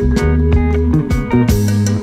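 Instrumental music: sustained low bass notes under several held tones, with regular drum hits.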